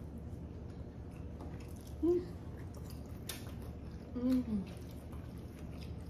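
Chewing and wet mouth sounds of people eating a seafood boil, with faint scattered clicks. Twice, about two seconds in and again past four seconds, someone gives a short hummed "mm", the second one falling in pitch.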